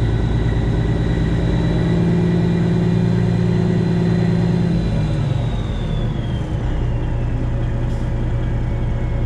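Semi truck's Detroit Diesel 12.7 engine running, with a high turbo whistle over it; the engine note holds higher for a few seconds, then drops back about five seconds in as the whistle winds down in pitch.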